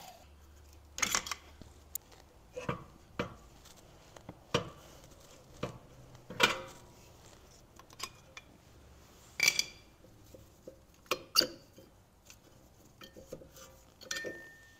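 Irregular metallic clinks and clicks of worn brake pads and hand tools being worked out of a BMW E46's rear disc brake caliper, a dozen or so separate knocks spread over the stretch.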